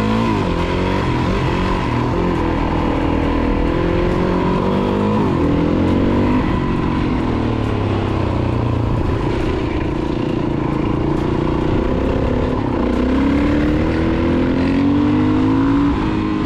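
Dirt bike engine heard from on board, revving as it is ridden, its pitch climbing and dropping several times as the throttle opens and closes.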